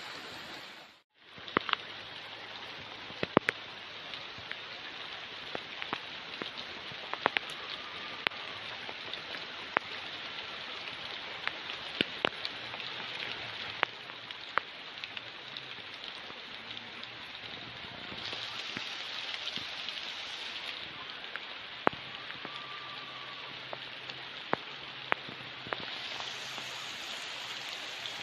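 Steady rain hiss with scattered, irregular sharp drop hits. The sound cuts out briefly about a second in.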